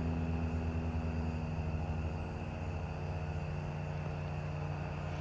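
Steady low drone of a distant engine, a hum of several even tones whose pitch shifts slightly about two seconds in, over a soft outdoor hiss.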